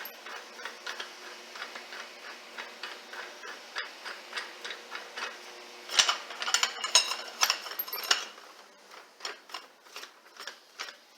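Light metal ticking, about three a second, as the nut and parts of a wheel bearing press tool are fitted and threaded on, with a burst of louder metal clanks about six seconds in.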